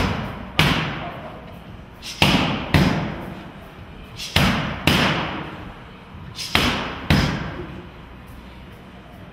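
Boxing gloves smacking a trainer's focus mitts in four one-two combinations. The two hits of each pair come about half a second apart, with about two seconds between pairs, and each smack echoes briefly in the gym hall.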